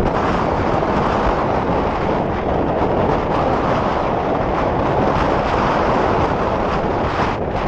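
Strong wind buffeting the microphone, a steady loud rushing noise with no shots.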